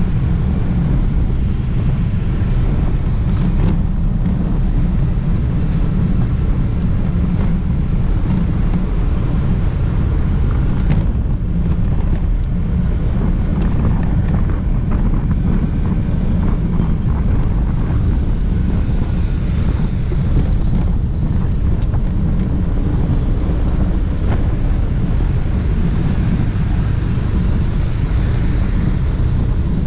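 Steady low rumble of wind buffeting the microphone of a GoPro Hero 5 Black on a moving vehicle at road speed, with vehicle and traffic noise under it.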